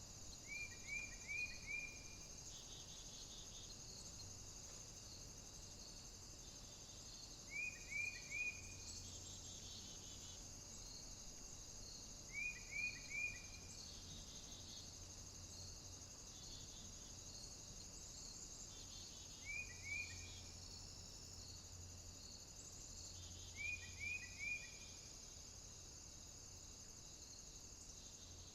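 Night-time cricket and insect chorus with a steady high trilling, and five times a group of three or four short, quick chirps in a lower voice.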